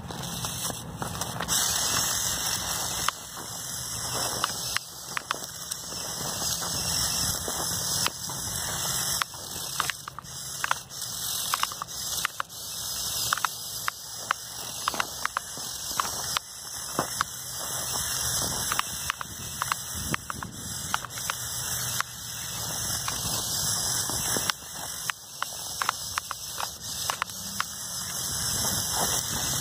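Two Lego Technic buggy motors whining at high pitch, driving the RC snowmobile's plastic tracks through snow, with many irregular sharp clicks.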